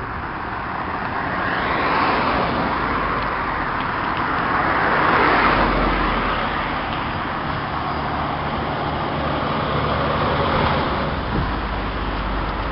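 Road traffic passing close by, vehicles swelling and fading one after another, three times over a low steady rumble.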